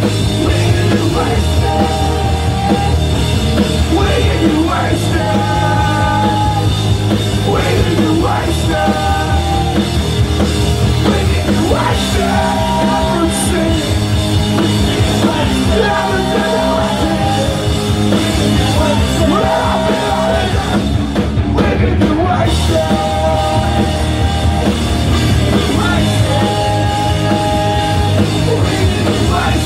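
Punk rock band playing live: electric guitars and full band, with loud sung and shouted vocals.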